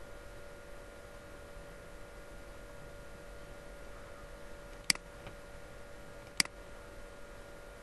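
Two sharp computer mouse clicks about a second and a half apart, with a faint third tick between them, over a steady low electrical hum.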